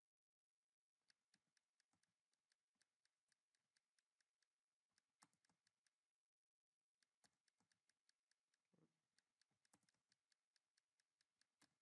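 Faint computer keyboard keystrokes: a run of evenly spaced key presses, about three or four a second, that pauses about six seconds in and then starts again.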